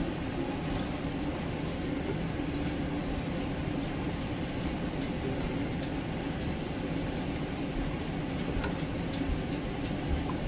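A steady, fan-like hum, with a few faint clinks from a ladle scooping syrup out of a stainless steel pot and into a jar.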